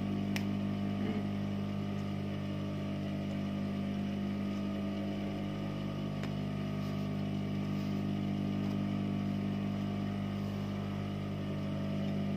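Steady hum of an industrial sewing machine's motor left running while the machine is not stitching, with a couple of faint clicks as stitches are picked out with scissor tips.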